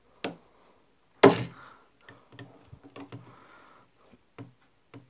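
Metal clicks and knocks from pliers gripping and working the float pin of a Honda Activa scooter carburetor: a sharp click just after the start, a louder knock about a second in, then several lighter ticks.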